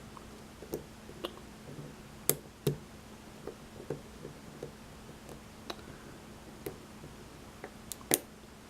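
Scattered small metallic clicks and taps from a lock being handled with its key and tools, as it is locked back up and worked at to get its cap off; the sharpest clicks come about two seconds in and near the end.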